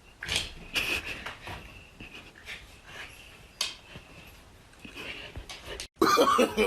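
A pet breathing and panting in short, irregular puffs, with small mouth noises. About six seconds in it cuts off abruptly and a person's voice starts.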